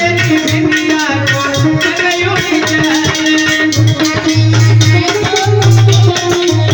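Krishna bhajan music: a held, wavering melody line over steady rhythmic percussion, with repeated low drum strokes.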